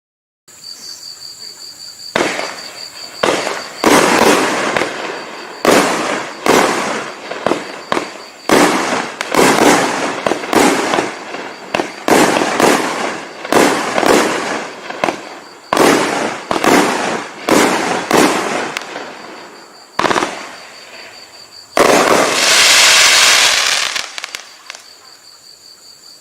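A 500-gram consumer firework cake (Winda Fireworks 'Godzilla Thrilla') firing. After a short hiss from the fuse, a string of shots and bursts goes off at roughly one or two a second. Near the end comes a dense volley lasting two or three seconds.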